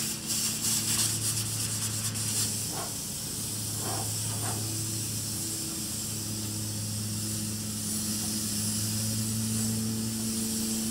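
Spray foam insulation gun hissing steadily, with a few rougher spurts in the first couple of seconds. A steady low hum runs underneath.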